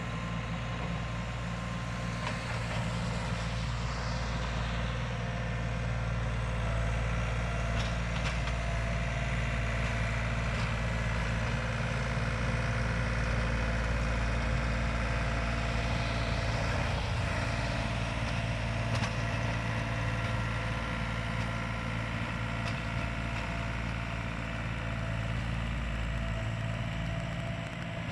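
John Deere 3720 compact tractor's diesel engine running steadily as it plows snow, an even low drone.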